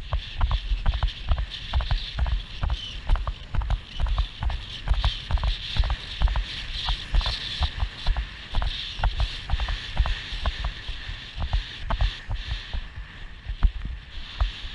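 A pony's hoofbeats thudding on grass turf in a fast, steady rhythm, with clicks and jingles from the tack and a steady hiss of wind on the helmet-camera microphone.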